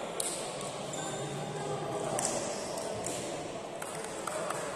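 Echoing sports-hall sound of an indoor basketball game: a few short sharp squeaks and knocks from play on the court over faint voices in the hall.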